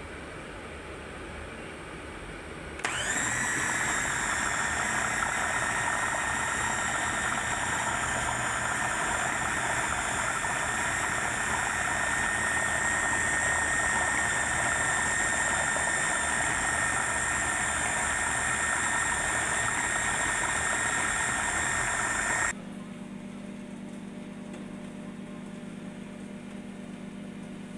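Electric kitchen blender switched on about three seconds in, spinning up and running at a steady high whine while blending batter. It cuts off abruptly after about twenty seconds, leaving a lower steady hum.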